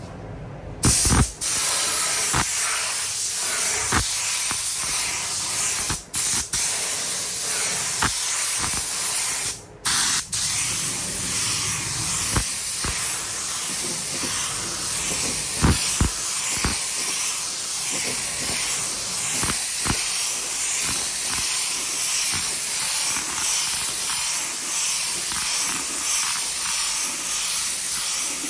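Compressed-air paint spray gun hissing steadily as paint is sprayed onto the car body; it starts about a second in and cuts out briefly twice, near the quarter and third marks, as the trigger is let go.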